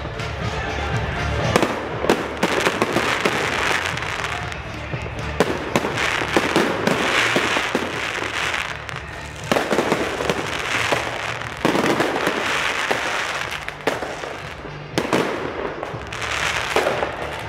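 Fireworks bursting overhead: a dense, continuous run of sharp bangs and crackles that swells in several waves.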